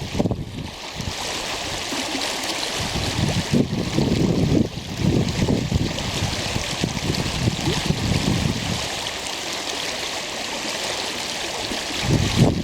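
Water flowing in a stream, a steady rushing hiss. Wind buffets the microphone in irregular low gusts, heaviest in the first half and easing later.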